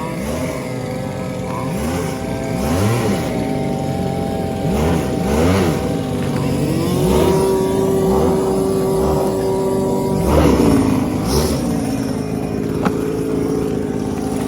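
Several string-trimmer engines powering small RC racing boats run at high revs together. Their pitch keeps swinging up and down as the throttles are worked, with a louder surge about ten seconds in before one engine settles to a lower steady drone.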